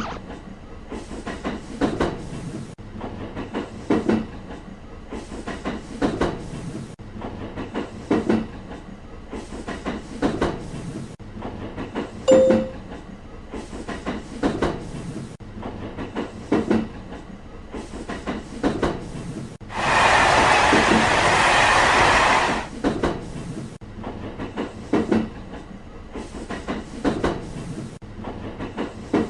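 Train wheels clacking over rail joints as a train passes, in groups about every two seconds. A short sharp tone sounds about twelve seconds in, and a loud rushing hiss lasts about two and a half seconds near two-thirds of the way.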